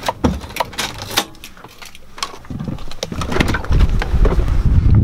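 A run of sharp clicks and rattles from keys and controls being handled in a vehicle cab. About four seconds in, a loud low rumble of wind buffeting the microphone takes over.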